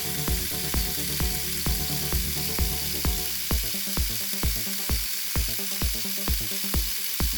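CO2 (MIG) welding arc crackling steadily. Background music with a steady beat of about two a second plays under it.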